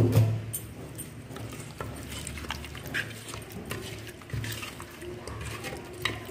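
Wet squelching and squishing of a hand kneading raw chicken legs with curd, turmeric and salt in a clay pot, in irregular strokes, with a thump right at the start.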